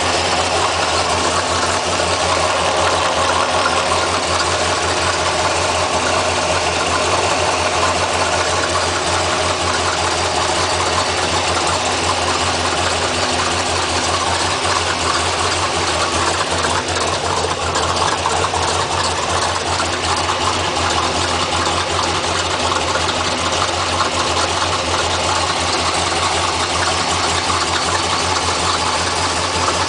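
Engine idling steadily with a constant hum, heard from underneath the vehicle. The owner is chasing a grinding/humming from the bottom end that he thought might be the oil pump or a bottom-end bearing wearing out.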